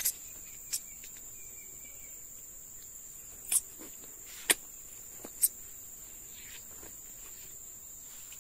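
Steady high-pitched insect buzz, broken by five sharp clicks spread over the first half.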